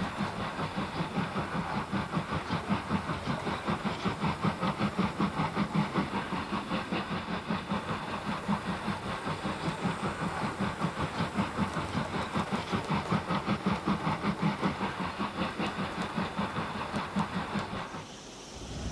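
LNER A5 4-6-2 steam tank locomotive working a train, with exhaust chuffs at an even beat of about four a second over a steady hiss. The chuffing drops away about a second before the end.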